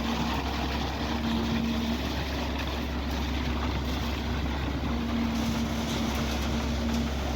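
Heavy construction machinery running steadily, with a deep engine rumble and a steady hum. The hum fades about two seconds in and comes back strongly about five seconds in.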